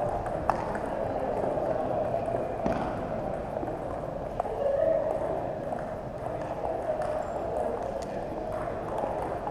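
Sparse sharp clicks of a celluloid ping-pong ball striking paddles and tables, the loudest two near the start about half a second apart and a few fainter ones later, over a steady hum of hall noise.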